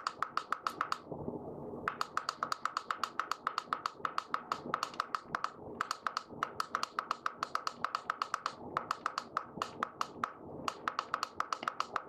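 Control panel of a BLACK+DECKER 12-cup programmable coffee maker (CM1331S) beeping with each button press as the clock's minutes are stepped forward, about five or six short beeps a second in runs with brief pauses between them.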